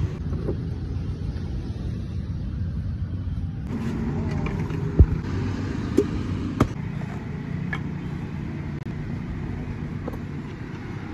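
A large knife chopping into the husk of a green coconut held on a wooden stump: three sharp chops near the middle, the first the loudest, with a few lighter knocks around them. Under it runs a steady low rumble of road traffic.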